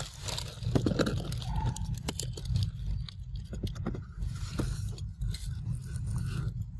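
Close rustling, scraping and irregular soft clicks from monkeys grooming with their fur right against the microphone, over a steady low rumble.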